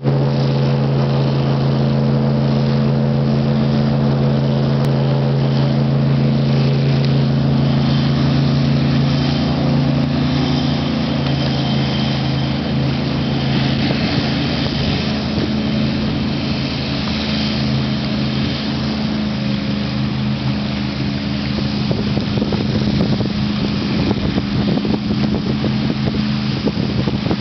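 Sheriff's airboat running on the river: its engine and large air propeller make a loud, steady drone, with wind rumbling on the microphone in the second half.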